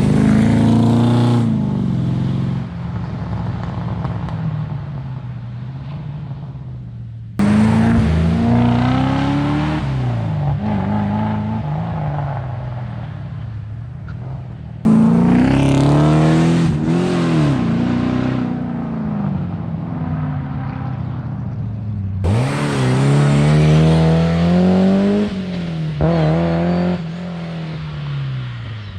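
Rally car engines revving hard and changing gear as they drive past, the pitch climbing and dropping with each shift. Four different cars are heard one after another, each for about seven seconds, with sudden cuts between them.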